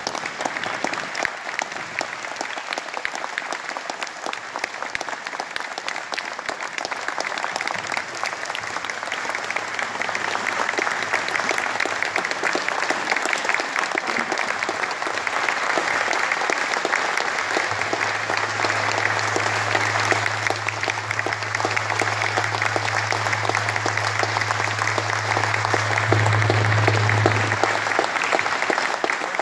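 Audience applauding: a long, steady round of clapping from many hands. A low steady hum sits underneath, coming in about ten seconds in and stopping shortly before the end.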